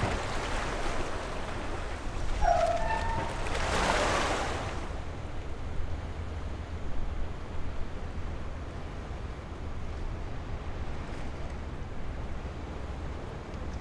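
Waves washing at the river shore, with a low steady rumble of wind underneath. A short bird call sounds about two and a half seconds in, and the wash surges louder around four seconds before settling to a steadier hiss.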